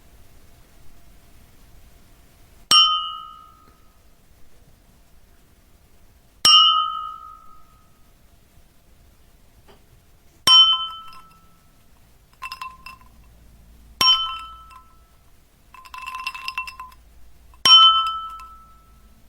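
Ding sound effect: about five single, bright dings a few seconds apart, each struck sharply and ringing out for about a second. Fainter, shorter tings fall between the later ones.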